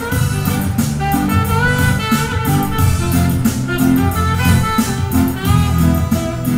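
A saxophone playing a melody over guitar, with a bass line and a steady beat behind: the instrumental opening of a Hawaiian ballad.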